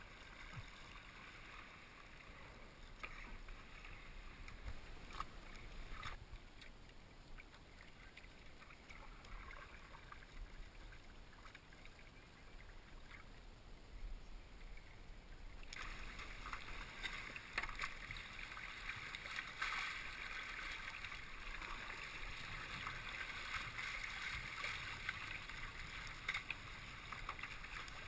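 Water splashing and trickling around a kayak on the water, with many small drips and splashes. It fades briefly about halfway through, then comes back stronger.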